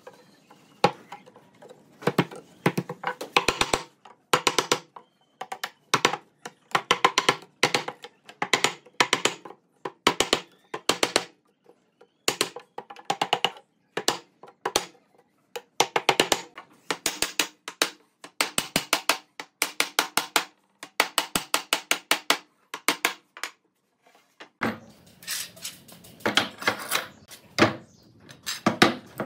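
Sharp wooden knocks in quick clusters of several a second, as a mortised top rail is tapped down onto the tenons of a row of wooden slats.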